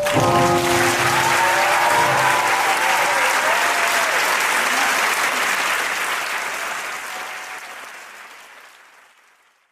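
Audience applauding, with a few shouts, as the music stops just after the start; the applause fades away over the last few seconds.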